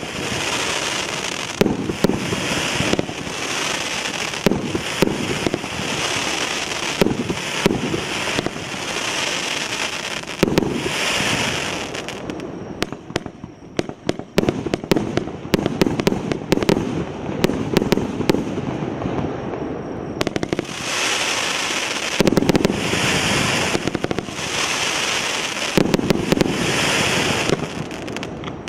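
PIROFF "Glavny Prazdnik" multi-shot firework cake firing shot after shot, a continuous run of launches and bursts. About halfway through it drops to a quieter stretch of sharp crackling pops, then the loud volleys resume.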